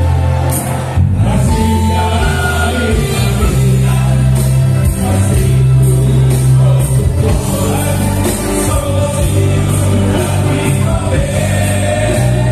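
A group of men singing together into microphones over a live band, with a strong bass line running under the voices.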